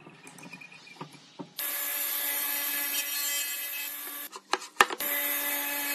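King radial arm saw running and cutting kerfs across a wooden beam to form a tenon: a steady whine of motor and blade in the wood from about one and a half seconds in, broken about two thirds of the way through by a few sharp knocks. Before the cut, softer rubbing and clatter of wood shifted on the table.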